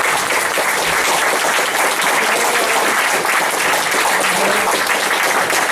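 Steady applause from a concert audience.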